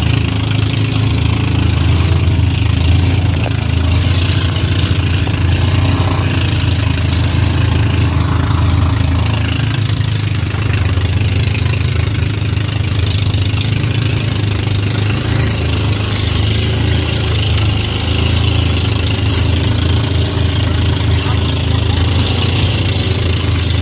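Outrigger pump boat's engine running steadily under way, with the hiss of spray and waves breaking against the hull and outrigger.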